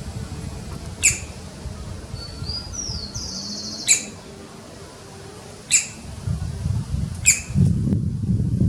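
Woodpecker giving four short, sharp, high call notes spaced about one and a half to three seconds apart.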